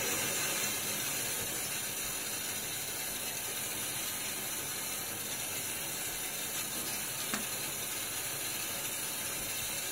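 Bathroom tap running steadily into the sink while the face is rinsed between shaving passes, with one faint click about seven seconds in.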